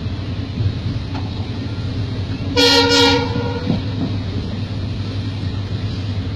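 Steady running rumble inside a moving passenger train coach, with the train's horn sounding one short blast about two and a half seconds in.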